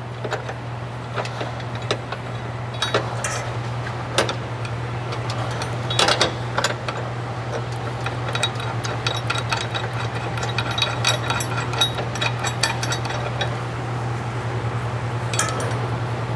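Scattered metal clinks and taps of bolts and brackets being handled and fitted into a differential brace, over a steady low hum.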